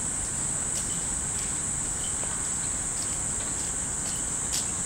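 Hanging Japanese wind chimes (fūrin) clinking here and there, a handful of light strikes with the strongest near the end, over a steady high-pitched insect drone from the trees.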